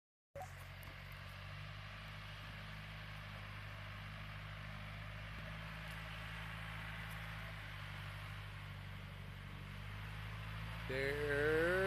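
Backhoe engine running at a steady speed.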